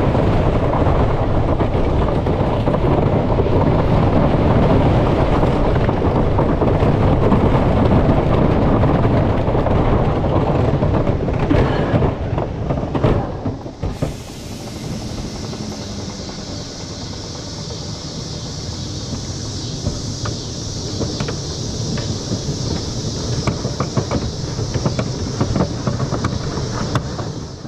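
Wooden roller coaster train heard from the front seat, its wheels rumbling and clattering loudly along the wooden track, then a few sharp clunks about twelve to fourteen seconds in as it slows onto the final flat stretch. After that it rolls much more quietly, with scattered light ticks from the track and a steady high hiss.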